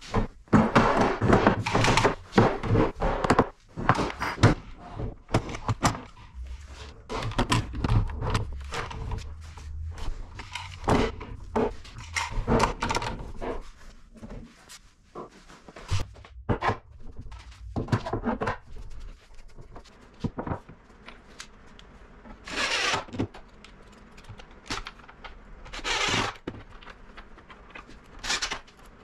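Knocks, thunks and clatter of wood and metal as an edge strip is set against a panel and bar clamps are fitted and tightened on it. Near the end come a few short bursts from a cordless drill driving screws.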